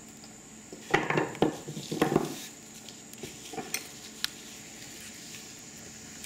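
Kitchen prep clatter on a wooden cutting board: vegetables and a knife knocked and set down in two bursts about one and two seconds in, then a few light taps.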